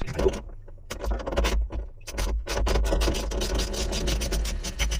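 Rapid, irregular clicking and scraping of hands and tools working on pipe fittings, thickening about two seconds in, over a low rumble.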